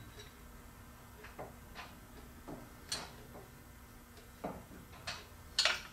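Scattered light metal clicks and taps, about seven and irregularly spaced, the loudest about three seconds in, from a steel computer-arm mount being fitted to a lathe stand with cap screws and an Allen key.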